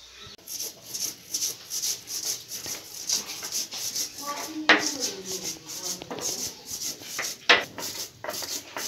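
A stone hand grinder (Nepali silauto and lohoro) grinding spices into a paste, the hand stone scraping back and forth over the flat stone about three strokes a second. Two strokes, about halfway through and later on, come out sharper and louder.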